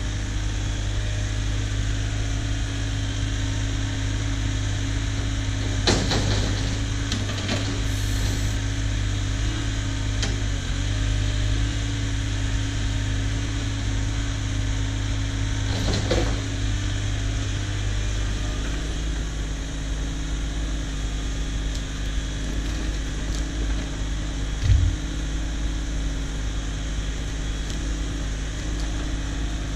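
Cat 304 mini excavator's diesel engine running steadily under work, its note changing about two-thirds of the way through. Two knocks come through, one about six seconds in and one about sixteen seconds in.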